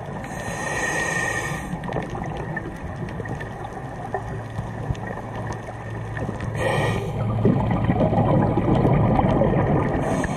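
A scuba diver breathing through a regulator underwater: two hissing inhalations, the second short, then a longer gurgle of exhaled bubbles near the end.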